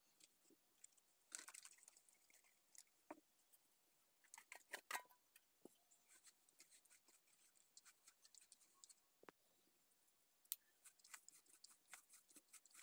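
Faint, irregular crackly rustling and scratching of a hand mixing grated coconut and salt in a plastic bowl.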